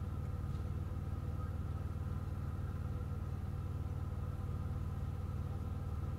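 Steady low hum of a stopped vehicle's engine idling, heard from inside the cabin, with faint steady higher tones above it and no change in level.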